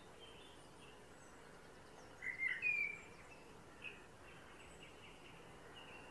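Male Eurasian blackbird singing a short, loud song phrase about two seconds in, followed by a brief note a second later. Fainter chirps of other birds run underneath.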